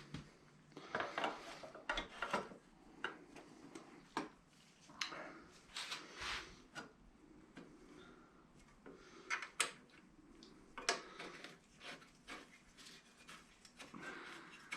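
Light handling noise of test-fitting an M.Unit control box onto a bent sheet-metal electronics tray: scattered small clicks, taps and rubbing at an uneven pace, with a couple of sharper taps a little past halfway.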